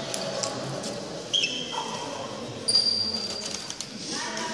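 Echoing sports-hall ambience between badminton points: a few short squeaks of shoes on the wooden court floor. Faint voices can be heard in the hall near the end.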